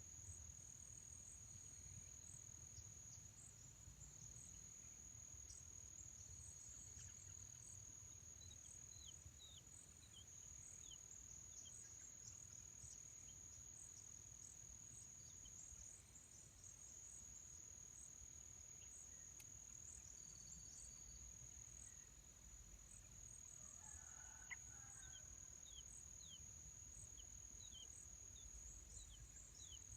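Faint, steady, high-pitched insect drone. Runs of short downward-sliding chirps come through it about a third of the way in and again near the end.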